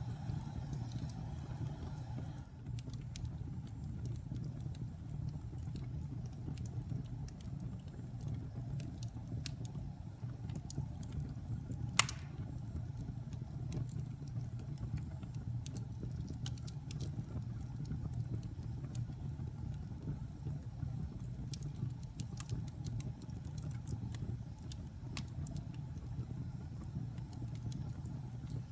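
Wood fire crackling: a steady low rumble from the burning fire with scattered small pops, and one loud sharp snap about twelve seconds in.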